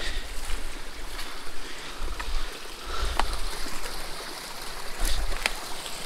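Footsteps tramping through brush and deadfall beside a small mountain stream, with the stream's steady wash behind them and a few sharp snaps of twigs underfoot.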